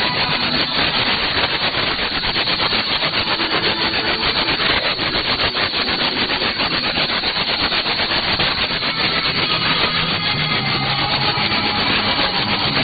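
Shortwave radio reception on 6160 kHz AM: loud, rasping static with a fast pulsing crackle, with the weak station's audio buried under the noise and not intelligible.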